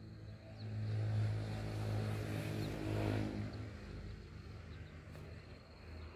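A motor vehicle passing by: its engine and road noise swell about a second in, then fade away over the following few seconds.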